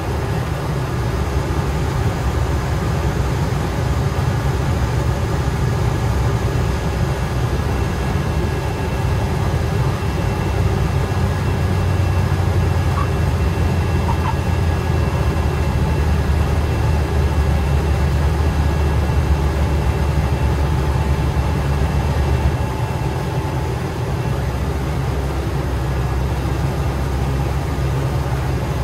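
Ultralight aircraft's engine and propeller running steadily with airflow noise, heard from inside the cockpit, through the landing flare, touchdown and rollout on the runway. The low drone grows stronger in the middle and eases about three quarters of the way through.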